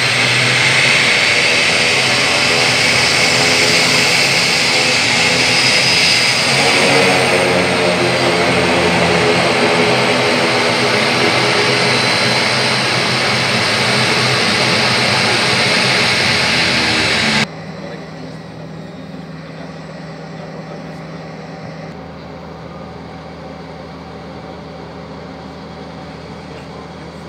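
Twin-turboprop ATR airliner taxiing on the apron, its engines and propellers running loud and steady with a faint droning hum. About two-thirds of the way through, the sound cuts off abruptly to a much quieter steady hum.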